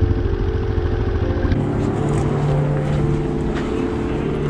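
Motorcycle engine running at low speed, a low pulsing rumble, as the bike rolls in slowly. About a second and a half in it cuts to a steady low hum with background hiss.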